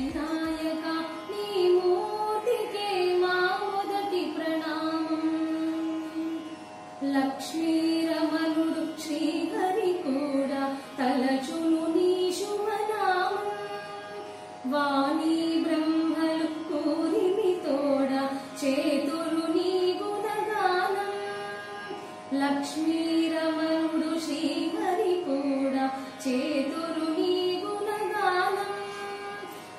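A woman singing a slow Carnatic-style song, with ornamented gliding notes in long phrases and short breaks between them.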